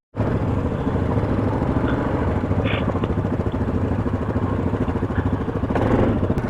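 ATV engine running steadily with a rapid low pulsing. It comes in abruptly just after the start.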